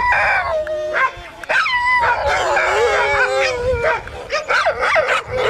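Dogs yelping and whining together: several high cries at once, sliding up and down in pitch and overlapping.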